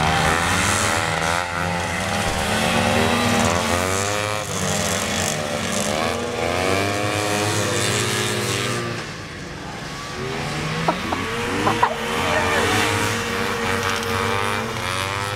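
Several vintage two-stroke snowmobile engines racing at once, their pitches rising and falling as the sleds rev and ease off through the turns. The sound dips briefly about two-thirds of the way through, and a few sharp clicks follow.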